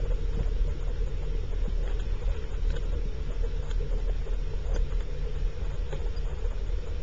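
Steady, muffled underwater rumble with a constant low hum, and a few faint clicks scattered through it.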